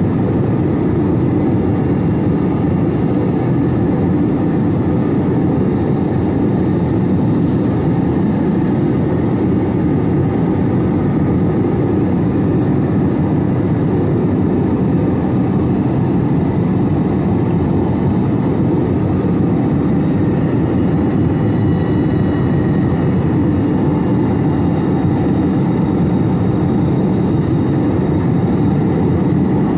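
Steady in-flight cabin noise of an Airbus A321, its engines and the airflow over the fuselage making an even, unbroken low drone.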